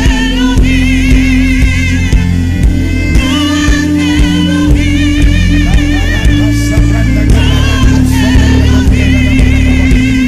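Gospel worship music: held keyboard chords and bass over a steady drumbeat, with voices singing with strong vibrato.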